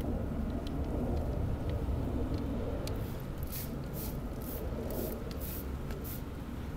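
Trigger spray bottle squirting sugar syrup onto package bees: a run of short hissing spritzes about twice a second in the second half, over a steady low rumble.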